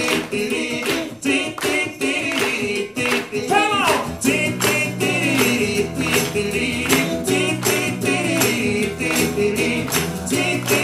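Live acoustic band playing an upbeat song, with strummed acoustic guitar, hand percussion and a wavering melody line, while the audience claps along in steady time.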